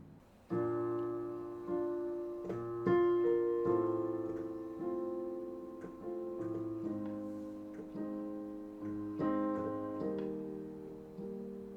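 Solo piano playing slow sustained chords, a new chord struck about every second and left to ring and fade.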